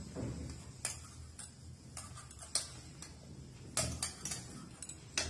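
A hand kneading whole-wheat flour dough in a stainless steel saucepan: soft rubbing and pressing, with about six light clicks scattered irregularly.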